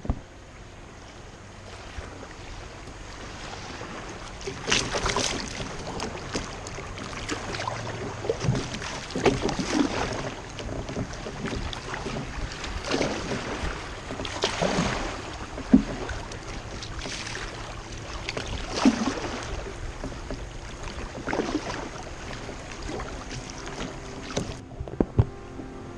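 River water rushing and splashing against a kayak's hull as it drifts through choppy, fast-moving water, with irregular slaps of water against the boat.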